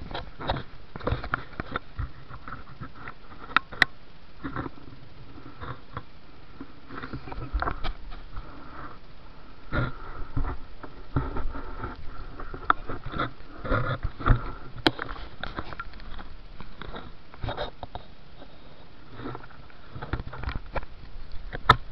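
A small boat being paddled by hand: irregular splashes of paddle strokes and knocks against the hull, with its engine silent.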